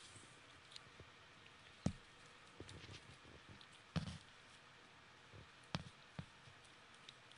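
Cavalier King Charles Spaniel puppy chewing a jerky treat: scattered faint clicks and crunches of teeth working the treat, the loudest about two and four seconds in.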